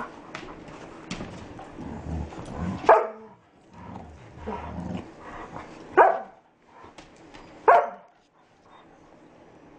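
Puppies play-fighting, giving three sharp barks about three, six and nearly eight seconds in, with quieter scuffling noise between.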